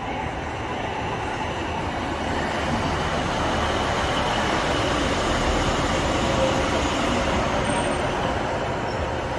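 A Class 156 Sprinter diesel multiple unit running into the platform and passing close by: its underfloor diesel engines and the wheels on the rails grow louder to a peak about six seconds in, then ease as the last carriage goes past.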